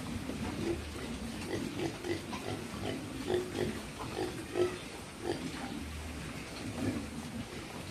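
A group of pigs grunting and munching as they feed on fresh madre de agua (Trichanthera) leaves, with short grunts coming a few times a second.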